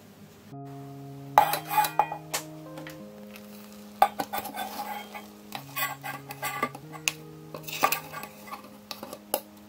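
A spatula scraping thick, sticky poolish out of one mixing bowl into a stainless steel stand-mixer bowl, with irregular scrapes and sharp knocks against the metal.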